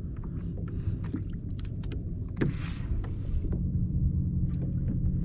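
Low rumble of water and motion around a fishing kayak, with scattered light clicks of rod and tackle being handled. A steady low hum gets stronger about three and a half seconds in.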